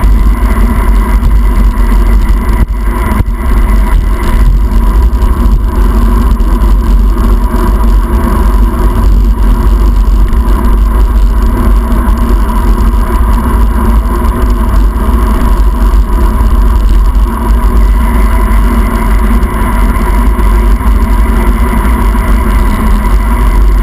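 Loud, steady rush of wind buffeting a handlebar-mounted camera's microphone as a bicycle descends at speed, with tyre hiss on the wet road.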